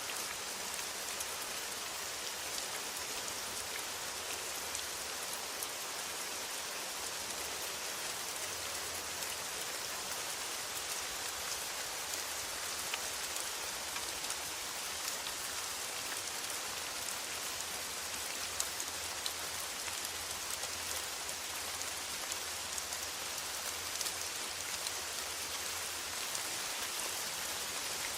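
Steady rain falling on a metal roof: an even hiss with many fine, sharp drop ticks scattered through it.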